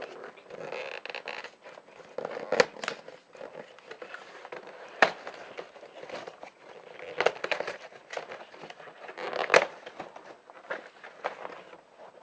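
A cardboard box being forced open by hand: irregular crackling, crinkling and tearing of cardboard and packing, with the sharpest cracks about two and a half, five and nine and a half seconds in.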